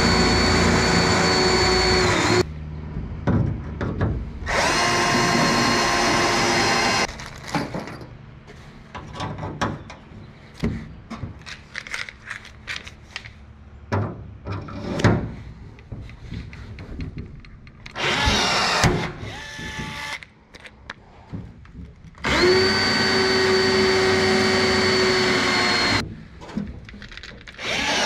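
Cordless drill running in bursts of about two to three seconds at a steady pitch: three long runs and a shorter one, drilling through the boat's aluminium deck framing. Between the runs come scattered clicks and knocks of the tool and metal being handled.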